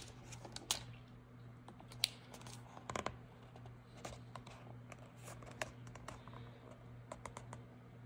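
Thin Bible paper and the book's cover being handled: faint scattered rustles and light ticks, over a low steady hum.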